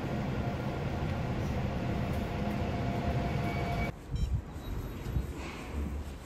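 Steady low rumble and hiss of a moving vehicle heard from inside, with a faint steady tone above it. It cuts off suddenly about four seconds in, and a few soft thumps follow.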